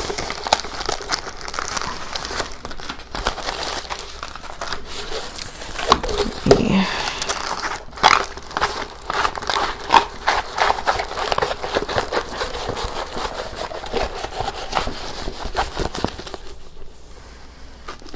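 Rustling and crinkling of a rolled diamond-painting canvas and its white wrapping being unrolled and handled, with many small crackles and clicks; it quietens near the end.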